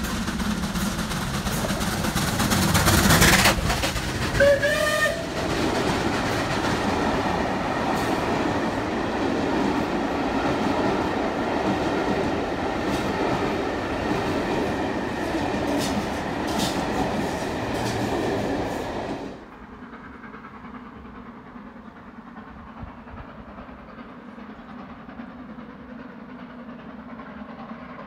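A steam-hauled train passing close at speed, loudest about three seconds in, with a short whistle about five seconds in. The coaches then roll past with a steady rumble and scattered sharp clicks from the wheels. At about two-thirds through the sound cuts off suddenly to quiet station background.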